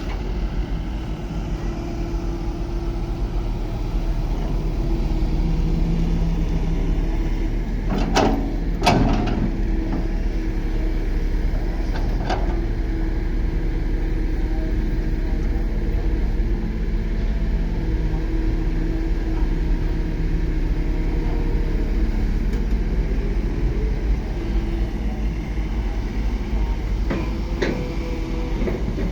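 A Komatsu D31 crawler bulldozer's diesel engine running steadily, with sharp metal clanks about eight, nine and twelve seconds in and again near the end.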